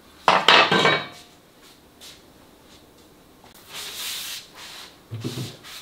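Workshop handling noises: a loud, brief scraping rub about half a second in, then a softer hissing rustle around four seconds in, as a black container on the floor is handled.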